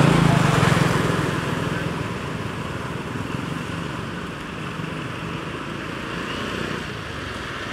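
A motor vehicle engine running in the background, louder in the first second or so, then easing to a steady rumble.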